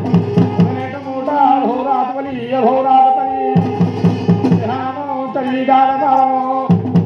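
Garhwali jagar music: a dhol beaten in quick runs of strokes that come back every few seconds, under a man's wavering singing voice.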